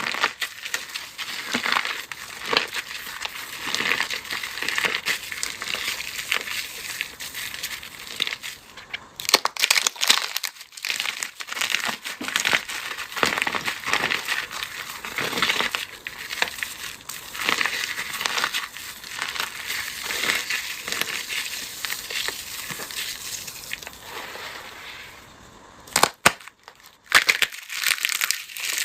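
Dry, brittle, crumbly material being crushed: a dense run of crunching and crackling with a few short pauses. A couple of sharp snaps come near the end.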